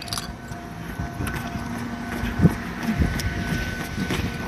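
Fujikyu 1000 series electric train (former Keio 5000 series) moving slowly along the platform. Its wheels give irregular heavy clunks over the rail joints, the loudest a little past the middle, over a steady electrical hum.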